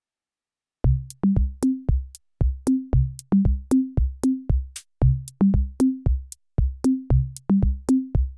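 Electronic dance-style music: a drum-machine beat of deep, pitched bass-drum hits, about three a second, stepping up in pitch in short runs of three or four. It starts about a second in.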